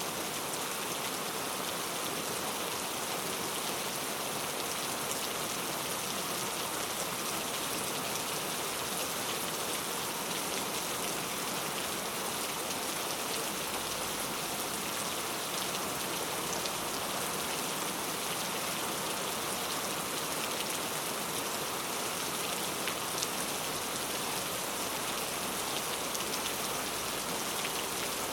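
Steady rain falling, an even hiss of many raindrops with faint scattered drop ticks.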